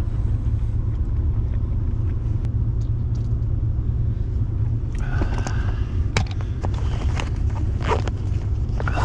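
A steady low rumble, with scattered scrapes and clicks over the second half.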